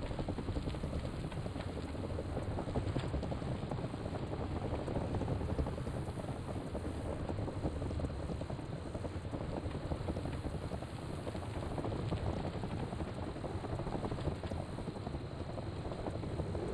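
Steady wind noise buffeting the microphone, with a low rumble underneath, as heard while moving at speed.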